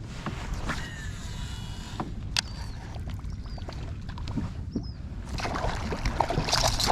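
Water sloshing and splashing around a kayak over a low steady rumble, the splashing growing louder and brighter near the end, with a couple of short high chirps in the middle.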